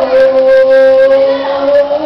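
A woman's voice through a hand microphone and loudspeaker, holding one long drawn-out note that dips at the start and then stays steady.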